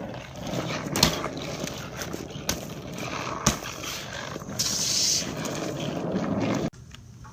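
A BMX bike being ridden: rolling, rattling mechanical noise with a few sharp knocks, a brief hissing scrape about five seconds in, then a sudden cut-off.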